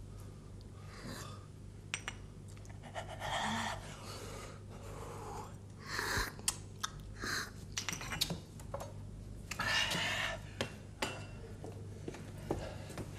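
A man noisily sipping and slurping coffee from a small cup, in several breathy sips with gasps between them, and light clicks of cup and saucer. A steady low hum sits under it all.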